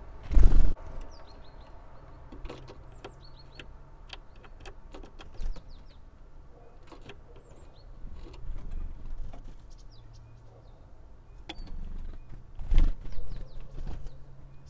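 Wings of a great tit flapping close by as it flies up from the feeder, a short loud flutter just after the start and another near the end. Between them come short thin high chirps from small birds, with a faint low hum at times.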